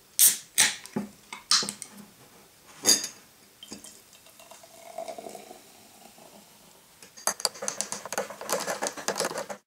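An aluminium Coca-Cola can is opened with several sharp clicks and snaps, the loudest in the first three seconds. Cola is then poured fizzing into a glass. From about seven seconds in, a metal spoon stirs it, clinking fast against the glass.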